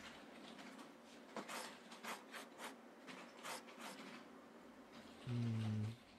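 Pen scratching on paper in a series of short drawing strokes, followed near the end by a brief low hum.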